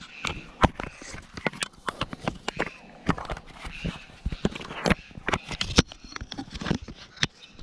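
Handling noise from an action camera being turned over in the hands: a rapid, irregular run of clicks, knocks and rubbing against the housing.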